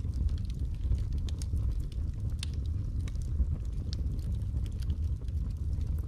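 Wood logs burning in a fireplace: a steady low rumble of the flames with scattered sharp crackles and pops from the wood.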